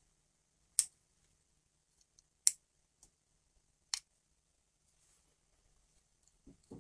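Three sharp plastic clicks about a second and a half apart, with a fainter one between them, from the buttons of a plastic astronaut star projector being pressed.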